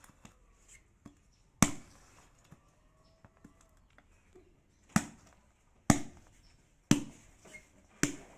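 A long knife chopping into a durian's thick spiky husk along its seam to split it open. There are five sharp blows: one alone, then four more about a second apart in the second half.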